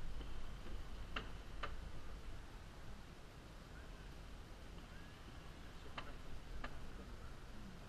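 Two pairs of sharp clicks, each pair about half a second apart and the pairs about five seconds apart, over a steady low background rumble.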